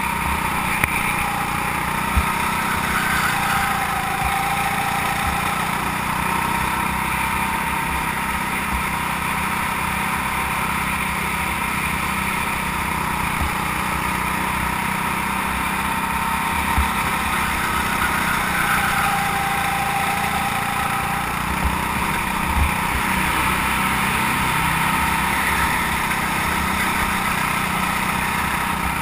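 Go-kart engine running at speed, heard from on board the kart; twice its note drops and then climbs again as the kart slows and accelerates. A few short knocks come through.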